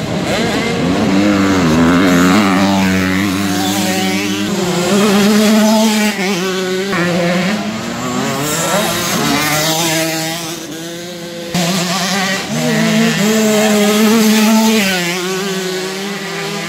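Several motocross bike engines revving hard on the track, overlapping, their pitch repeatedly climbing and then dropping.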